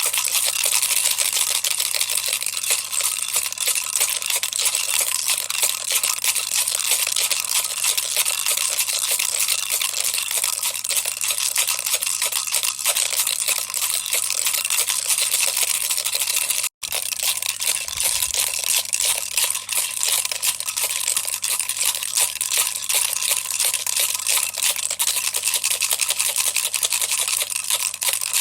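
Baby toy rattle shaken continuously, its beads clicking in a fast, dense, even rattle. It breaks off for an instant about two-thirds of the way through, then carries on the same.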